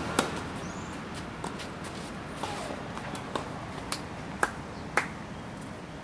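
Tennis ball hit by a racket on a clay court: a sharp pop just after the start, followed over the next few seconds by several fainter pops of the ball being struck and bouncing, with two sharper clicks near the end.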